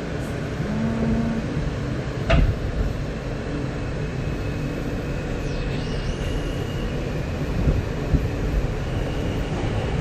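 New York City subway car heard from inside: a steady low rumble and hum. There is one sharp knock about two and a half seconds in, and a faint high whine from about six seconds in.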